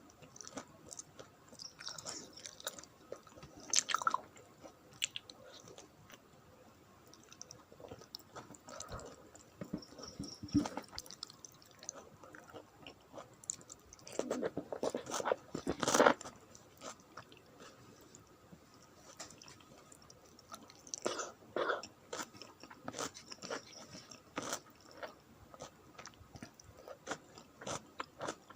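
Close-up mouth sounds of a person eating a rice meal: irregular wet chewing and lip smacks with occasional crunchy bites, loudest in short clusters a few times.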